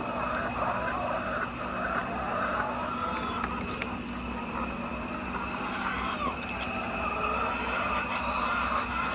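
A flock of laying hens clucking and calling over one another without pause, over a steady mechanical hum.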